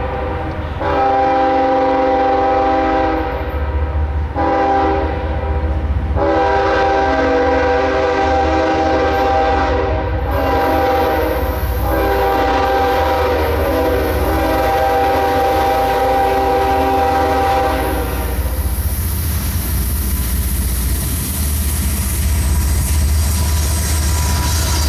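Diesel locomotive air horn on a CSX ES44AC sounding the grade-crossing signal: the tail of one long blast, another long blast, a short one, then a final long blast held until about three-quarters of the way through. After it the low rumble of the locomotives' diesel engines and wheels on the rails grows as the locomotives pass near the end.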